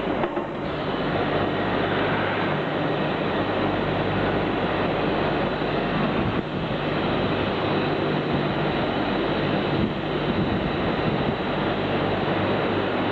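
Steady machinery running with a continuous low hum, typical of a hydraulic high-frequency plastic welding machine at work, with short dips in level about six and ten seconds in.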